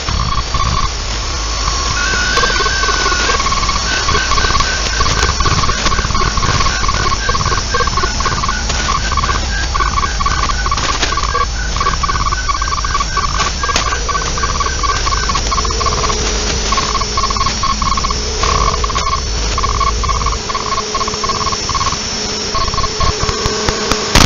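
Shortwave radio receiver tuned to 14.075 MHz in the 20-metre amateur band: steady static hiss with rapidly pulsing on-off tones of radio signals, a second higher dotted tone joining a couple of seconds in, and a low drone underneath that drops out near the end.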